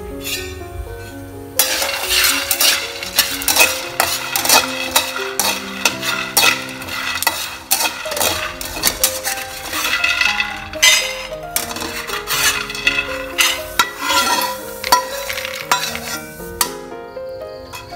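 Peanuts being dry-roasted in a stainless steel wok, stirred with a metal spatula: a dense rattling and scraping of nuts and metal on steel, starting about a second and a half in. Near the end the peanuts are tipped out of the wok into a steel bowl, and the clatter stops shortly after. Background music plays underneath.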